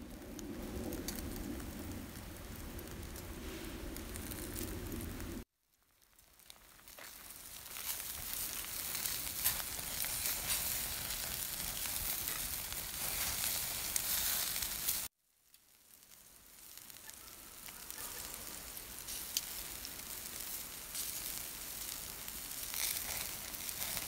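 Pork sizzling on a wire grill over charcoal: a steady hiss of fat spitting, with scattered sharp crackles. The sound cuts off abruptly twice and fades back in each time.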